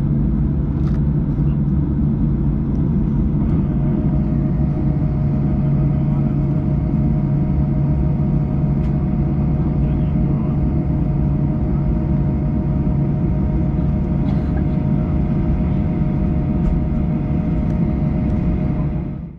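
Boeing 737-800 cabin noise heard from a window seat: a steady, loud low drone of engines and air systems. A steady higher whine joins about three and a half seconds in, with a few light clicks.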